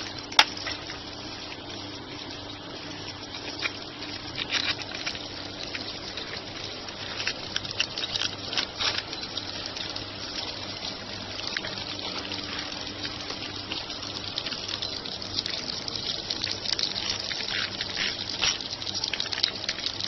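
A steady rush of water over a faint low hum, with scattered metal clicks and clinks as a stainless steel pipe repair clamp is fitted around the pipe and its bolts are turned with a ratchet wrench. The clicks come more often near the end.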